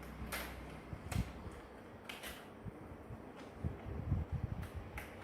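A few light clicks and handling noises as a laptop RAM module is taken out and moved to the other memory slot.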